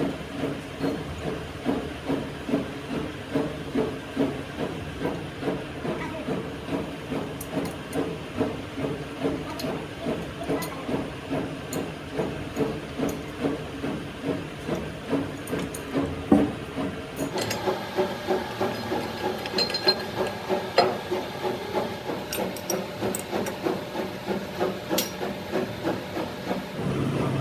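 Rhythmic metalworking noise in a machine shop, repeating at about two strokes a second. There is a single sharp knock a little past halfway, and the strokes sound brighter after it.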